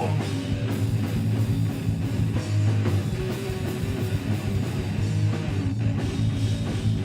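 Live heavy metal band playing an instrumental passage: guitar over a strong, steady bass line, with regular drum hits.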